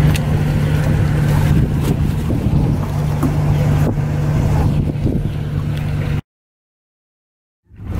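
Motorboat engine idling with a steady low hum, with wind and water noise over it. About six seconds in the sound cuts out to dead silence for about a second and a half, then fades back in.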